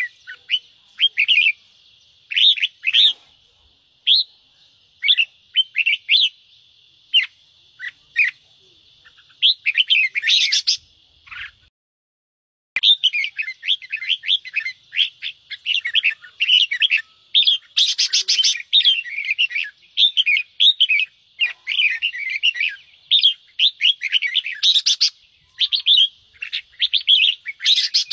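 Red-whiskered bulbuls giving the harsh, agitated chattering 'ché' calls. The calls are scattered at first. After a brief silent break about twelve seconds in, they come in a dense, rapid run.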